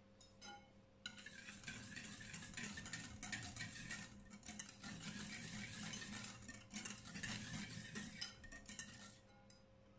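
Wire whisk stirring a thick cream cheese and melted butter mixture in a glass bowl: fast, continuous scraping and clinking of the whisk against the glass. It starts about a second in and stops near the end.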